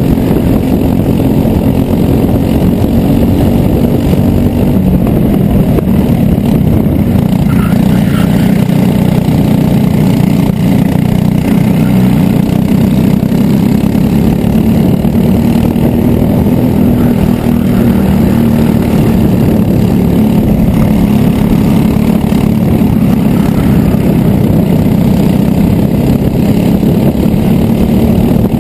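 Racing kart's engine running hard at speed, heard close up from on board the kart. A loud, continuous note whose pitch sags slightly and rises again as the kart goes through the corners.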